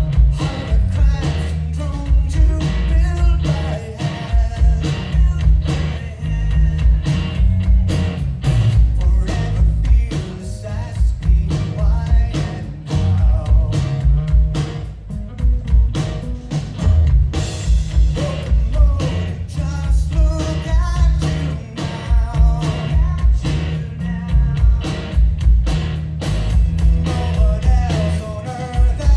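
Live rock band playing a song with drums, electric and acoustic guitars, keyboards and singing, recorded from the audience, with a heavy, boomy low end.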